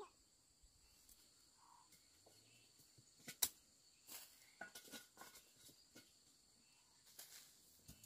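Near silence: a faint, steady, high-pitched insect drone, with a scatter of short sharp clicks and knocks. The loudest knock comes about three and a half seconds in.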